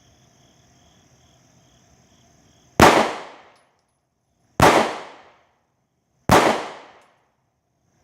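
Three shots from a 9mm Smith & Wesson M&P Shield pistol, evenly spaced less than two seconds apart, the first about three seconds in. Each is a sharp crack that dies away quickly.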